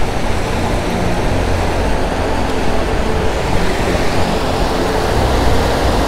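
Water rushing steadily over a small river weir, an even, loud roar with a strong low rumble.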